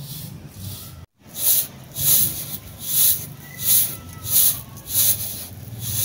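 Sesame seeds swishing and rattling on a round metal tray as they are tossed up and caught again in winnowing, a rhythmic shush about every two-thirds of a second, broken briefly about a second in.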